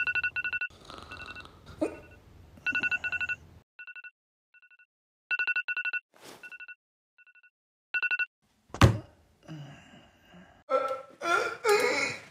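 Smartphone alarm beeping: short two-pitch electronic beeps in uneven clusters that stop about eight seconds in. A sharp knock follows, then a long voiced yawn near the end.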